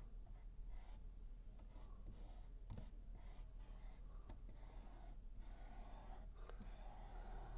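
Faint, irregular scratching and rubbing strokes of paint being worked onto a painting surface, with a few light taps.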